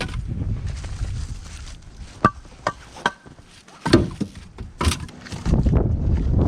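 Split pieces of dry locust firewood knocking against each other as they are tossed onto a load: about six sharp, hard clacks, several with a short hollow ring. The clear ring is a sign that the locust is dry. A low rumble lies under the first two seconds and returns near the end.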